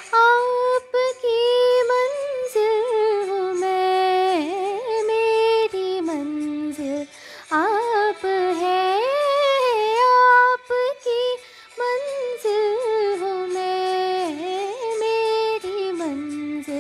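A young girl singing a slow Hindi film song solo into a close-held microphone, holding long notes with vibrato and ornamented glides between them. The phrases break for short breaths about seven and twelve seconds in.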